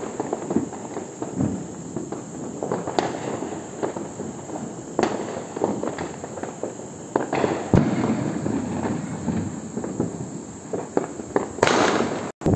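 Firecrackers and fireworks going off: many scattered bangs and crackles at irregular intervals, with one loud bang about eight seconds in and a short rushing hiss near the end.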